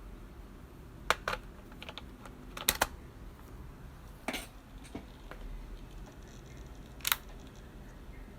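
MacBook Pro charger plug and cable being handled and plugged in: a string of sharp plastic clicks and small knocks, with a pair about a second in, a double click just before three seconds, a scraping click past four seconds, and a last click near seven seconds.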